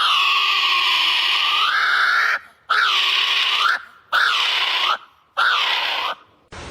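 A bird screaming harshly four times: one long scream of about two seconds, then three shorter screams of about a second each, with short pauses between.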